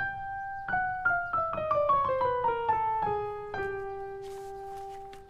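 Piano music: a single note, then a quick run of notes stepping downward in octaves, about four a second, ending on a held lower note that slowly fades.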